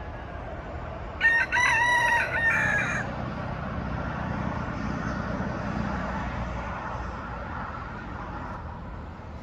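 A rooster crows once, about a second in, a call lasting nearly two seconds, over a steady low rumble that swells in the middle.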